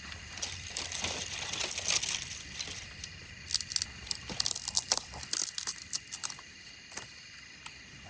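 Dry leaves and twigs rustling and crackling, with many small sharp snaps coming in bursts.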